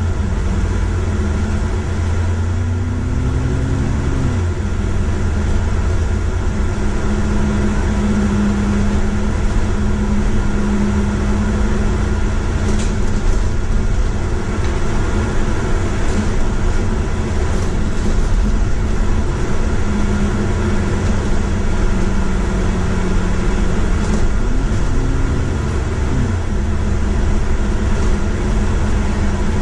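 Engine and road noise of a moving bus, heard from inside: a steady rumble with an engine tone whose pitch rises and then drops about four seconds in and again near the end, as the bus accelerates and changes gear.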